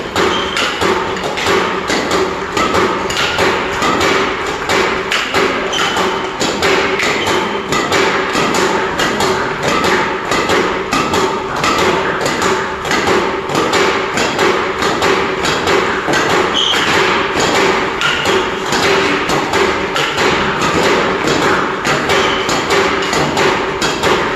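A quick, even string of impacts, about two to three a second: a badminton racket hitting back shuttlecocks that a shuttlecock launching machine fires in rapid succession.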